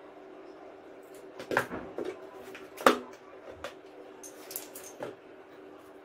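Hard plastic motorcycle helmet being handled by hand: a handful of irregular knocks and clicks, the loudest about three seconds in, over a faint steady hum.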